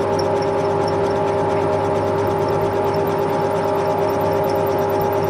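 Electric motor of a workshop machine running steadily at constant speed, with an unchanging hum and faint evenly spaced ticks.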